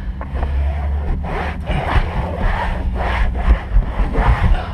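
A shop towel wiping the car's rear dash and side trim dry. It makes repeated rubbing swishes, about two a second.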